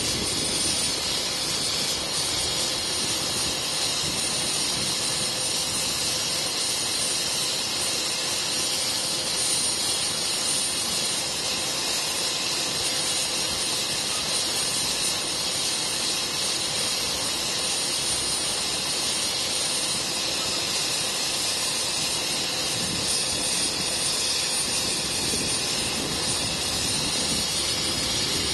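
Helicopter engine running steadily on the ground: an even, hissing whine that does not change.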